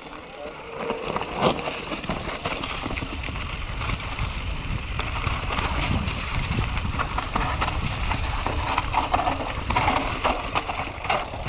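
Enduro mountain bike rolling downhill on a forest singletrail: tyres crunching over dry leaves and loose stones, with many small knocks and rattles from the bike over the bumps and a steady low rumble of wind on the microphone.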